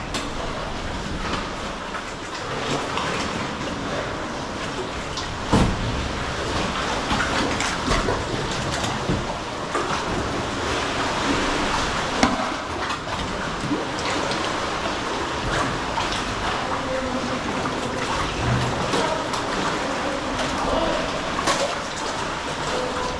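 Sea water sloshing and splashing as sea kayaks are paddled, with a few sharp knocks.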